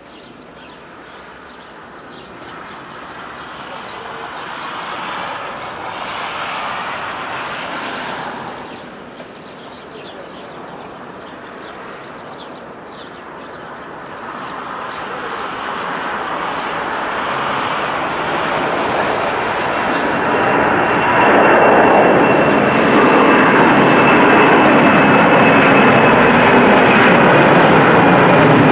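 Boeing 747-400's four jet engines at take-off power, a broad rumble that swells, dips briefly about eight seconds in, then builds again as the jet lifts off and climbs, holding loud over the last several seconds with a thin steady whine on top.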